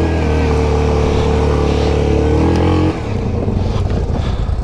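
Yamaha Grizzly 700 ATV's single-cylinder engine running steadily under throttle, then about three seconds in the throttle is let off and the note drops to a lower, uneven putter as the quad slows.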